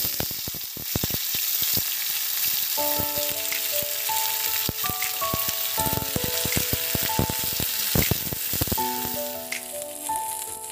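Dhekia saag (vegetable-fern greens) sizzling as they stir-fry in hot oil in a steel kadhai, with many small crackles and ladle clicks. Background music comes in about three seconds in.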